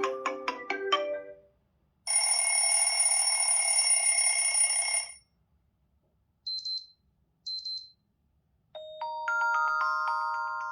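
Xiaomi 12 Pro ringtones and alert tones played one after another: a melodic ringtone ends about a second in, then a steady bright chime tone lasts about three seconds, two short high beeps follow a second apart, and a new struck-note melody begins near the end.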